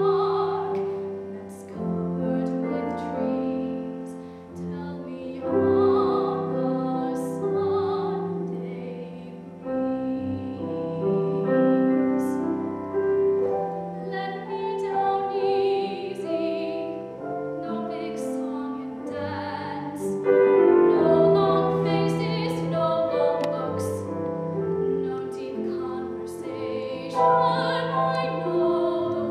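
Solo soprano singing with piano accompaniment, with several long held notes.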